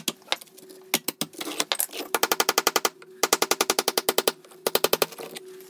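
Hammer blows on a cold chisel driven into the mortar joint of a brick hearth: quick runs of sharp metal-on-metal strikes, about nine a second, broken by short pauses.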